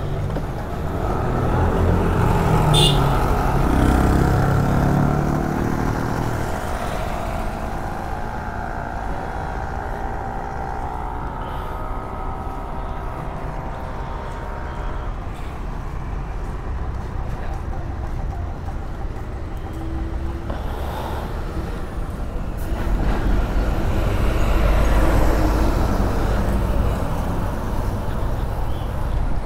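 KTM motorcycle being ridden, its engine pitch rising as it speeds up a couple of seconds in, with a steady wind rumble on the microphone and traffic on the road.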